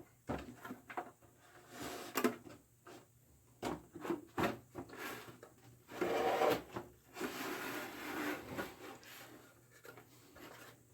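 Plastic case of a Macintosh Classic being worked apart by hand: scraping and rubbing with irregular clicks and knocks, and a longer scrape about six seconds in.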